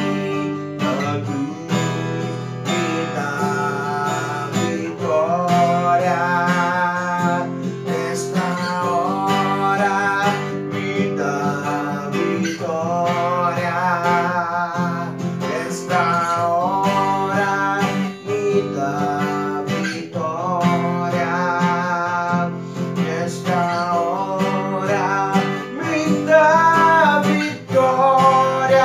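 Man singing a hymn while strumming an acoustic guitar, the strummed chords steady under his sung lines.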